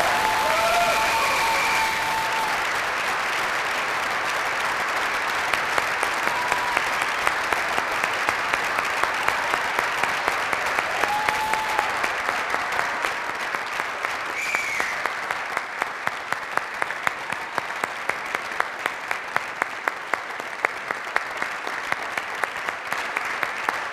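Large audience applauding steadily, with a few short shouts from the crowd. The applause slowly fades, and sharp single claps stand out in its later part.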